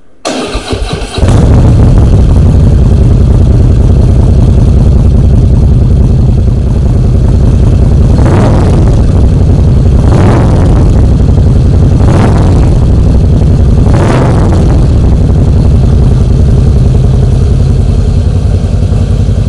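Harley-Davidson Fat Boy S's 1800 cc Twin Cam V-twin, breathing through Screamin' Eagle twin mufflers, is started. The starter cranks for about a second, then the engine catches and idles loudly. Midway through, the throttle is blipped four times, about two seconds apart.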